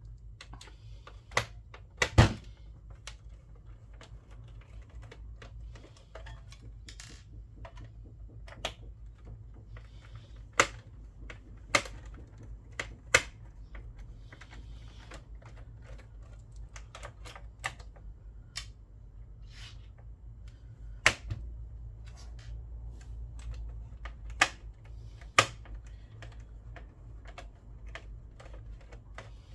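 Scattered sharp clicks and taps of small screws, a screwdriver and plastic casing parts being handled as a PlayStation 3 is put back together, over a steady low hum.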